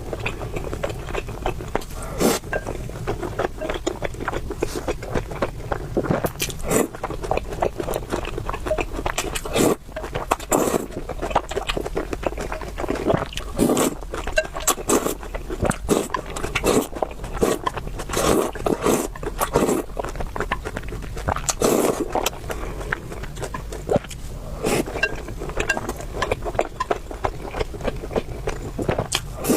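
Close-miked eating: continuous chewing and mouth sounds, with many small wet clicks and crackles.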